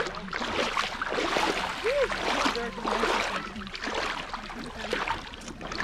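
Shallow sea water sloshing and splashing around legs as people wade through knee-deep water, in irregular surges.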